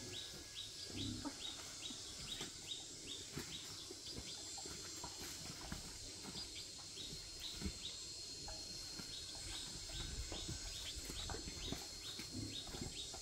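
A bird chirping over and over: short, high, falling chirps about three a second in two runs, one at the start and one near the end, over a steady high hiss and scattered soft knocks.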